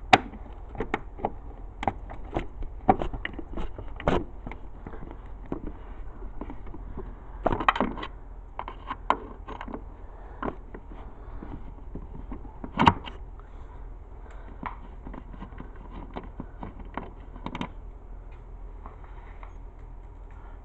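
Irregular small clicks, scrapes and knocks of a screw being worked out of a dehumidifier's back panel and the plastic housing being handled, with a few louder knocks.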